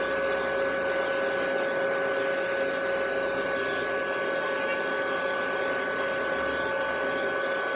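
Induction heater of an automatic pipe end closing machine running steadily while the steel tube end heats red-hot in its coil: an even hum with a steady mid-pitched whine and fainter higher tones over a hiss.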